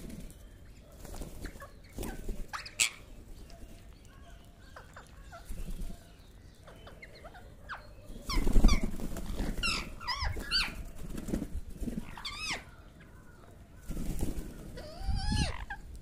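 A flock of rose-ringed parakeets screeching in short, sharp rising-and-falling calls, busiest in the middle, with a few low rumbles.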